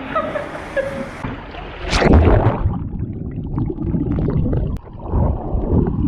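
Sea water splashing, with a loud splash about two seconds in. After it the sound turns muffled, with low sloshing and bubbling heard underwater.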